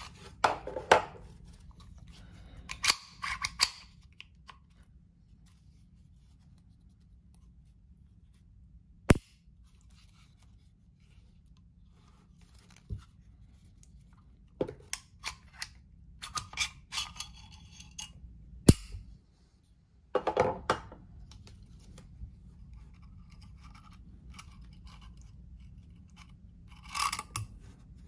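Metal clicks and sliding scrapes of a Bersa Thunder .22 pistol being field-stripped by hand, the slide worked and taken off the frame. Handling noises come in short clusters, with two single sharp snaps standing out, about ten seconds apart.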